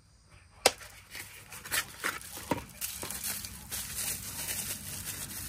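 Packaging being handled and unwrapped by hand to get a pocket knife out, with a sharp click about two-thirds of a second in, a few smaller clicks after it, and steady rustling through the second half.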